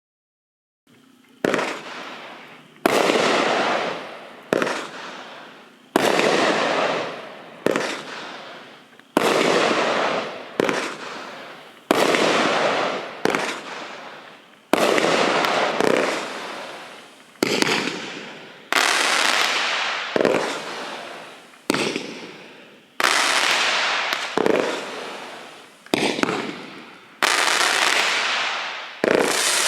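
A 500-gram, 63-shot consumer fireworks cake firing shot after shot, about one every second or so. Each shot is a sharp bang followed by a long fading tail.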